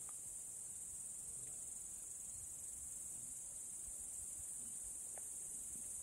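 Steady, high-pitched chorus of insects, a continuous chirring.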